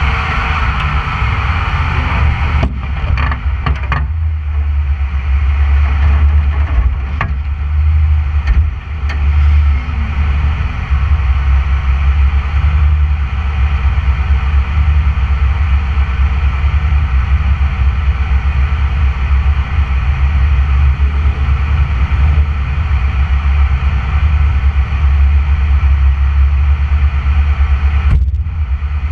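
Off-road vehicle engine idling steadily, a low, constant rumble heard from the hood.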